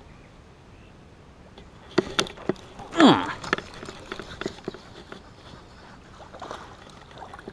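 Sharp clicks and knocks from the rod, reel and boat as a small fish is reeled in and swung to the boat. About three seconds in, a short exclamation falls steeply in pitch.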